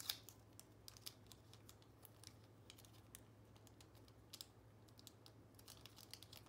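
Faint, irregular light clicks and taps of fingers handling small paper picture cards, over a low steady hum.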